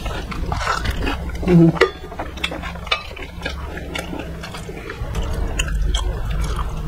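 Close-miked mouth sounds of eating by hand: wet chewing, lip smacks and slurps as many short clicks, with a brief hummed vocal sound about a second and a half in.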